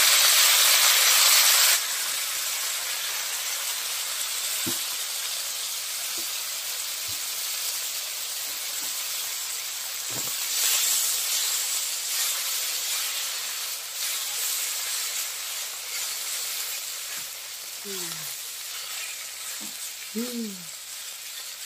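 Wet chopped sabung leaves hitting hot oil in a wok: a loud burst of hiss that drops suddenly after about two seconds to a steady sizzle as the leaves fry, with a wooden spatula stirring and scraping the pan now and then.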